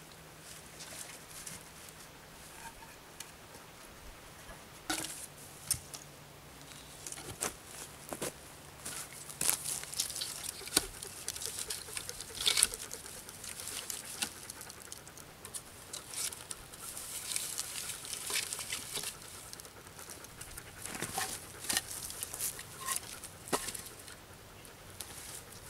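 Wooden poles and sticks being handled and set in place: irregular rustling and scraping of bark and forest-floor debris, with scattered light wooden knocks and crackles.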